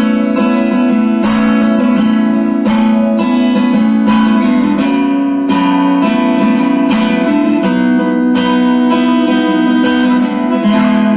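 Steel-string acoustic guitar strummed in a steady chord rhythm, heard amplified through a Cherub stick-on pickup.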